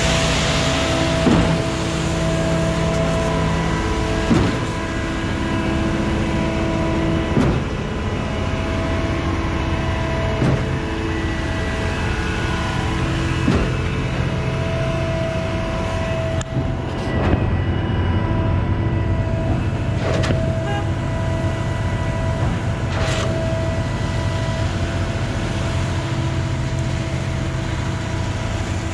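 Concrete boom pump truck running and pumping concrete, its engine and hydraulics droning steadily, with a sharp knock about every three seconds as the pump pistons change stroke.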